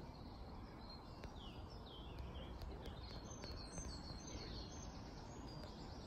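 Small birds singing, with many short high chirps and downward-sweeping notes repeating, over a faint steady low rumble.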